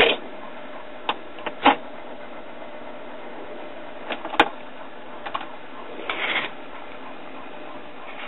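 Classroom record player's turntable running with a steady mechanical whir, with a few sharp clicks and knocks scattered through it.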